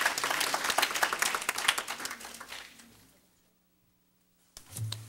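Small audience applauding; the clapping dies away over about three seconds. A single soft knock sounds near the end.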